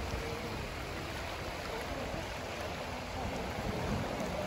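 Small sea waves lapping and washing against a rocky shore in a steady, even wash, with wind rumbling on the microphone.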